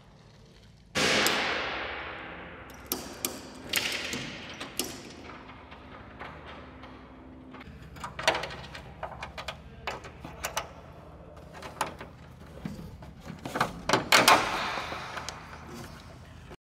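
Small metal clicks and knocks as fastening hardware is worked into a metal bracket on an ultralight's riveted aluminium fuselage. About a second in there is a louder sudden sound that fades away over a couple of seconds.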